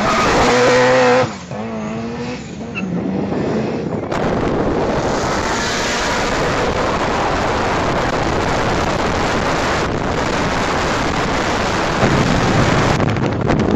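Turbocharged flat-four of a GC8 Subaru Impreza WRX STI accelerating hard. Its revs are held high, then drop at a gear change about a second in, climb again and drop at another shift a couple of seconds later. After that comes a steady rush of engine, wind and road noise at speed.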